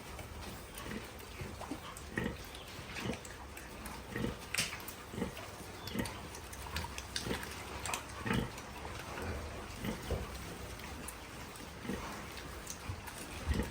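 Pigs grunting: short grunts repeated about once or twice a second over a steady low hum.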